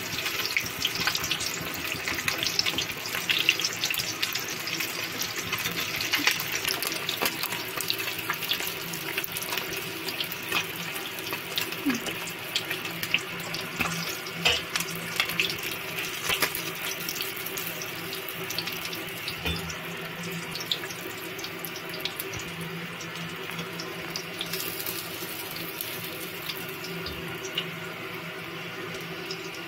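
Fish pieces frying in hot oil in a karahi: a steady crackling sizzle with many small pops, easing slightly in the second half.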